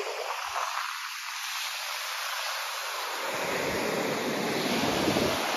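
Sea surf washing on the beach, with wind on the microphone. About three seconds in, the sound fills out and gets a little louder as small waves break close by.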